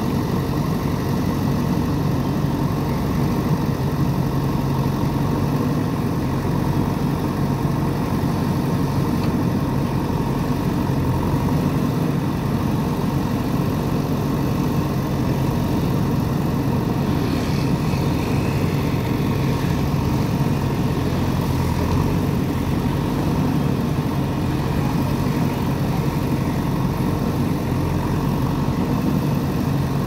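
A JCB 3DX backhoe loader's four-cylinder diesel engine running at a steady, even pitch while the backhoe arm works.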